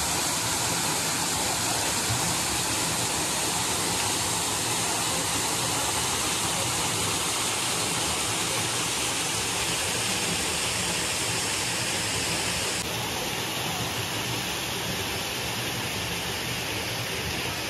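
Waterfall: water pouring and trickling down a mossy rock face into a pool, a steady rushing noise that dips slightly about 13 seconds in.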